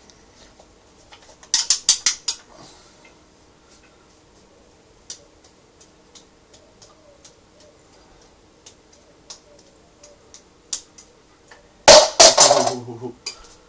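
Knives being juggled: sharp metallic clicks and clinks as the blades knock together and are caught. A quick cluster comes about two seconds in, then scattered single ticks, and the loudest clatter comes near the end.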